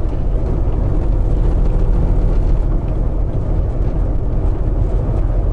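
Semi-truck engine and road noise heard from inside the cab: a steady low rumble.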